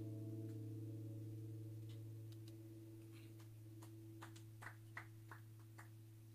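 Guitar's last chord ringing out and fading slowly over a steady low amplifier hum, with a few soft clicks in the second half.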